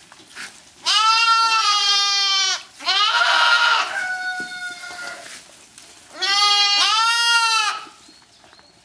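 Goat kids bleating: three loud, long, quavering calls, about a second in, about three seconds in and about six seconds in, with a fainter call between the second and third.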